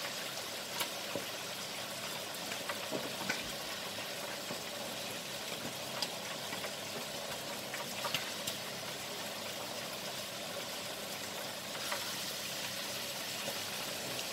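Stir-fry sizzling steadily in a wok, with scattered clicks and scrapes of a spatula and spoon against the wok and plate as the food is dished out.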